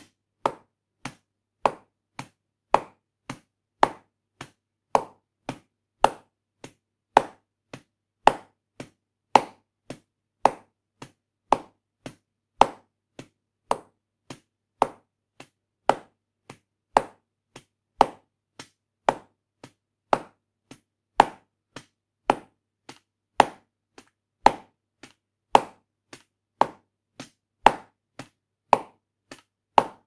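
Rubber stamp pressed quickly and repeatedly onto an inkpad and onto letters: a steady run of sharp knocks, about two a second, alternating louder and softer.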